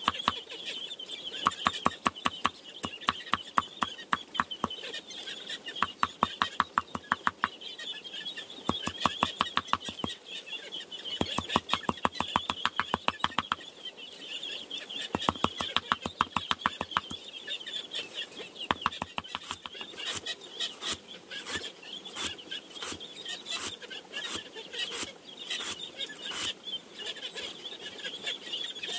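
Runs of quick sharp strokes on bamboo, about five or six a second in bursts of a second or two. In the last third they come sparser and sharper. Chickens cluck and chirp steadily in the background.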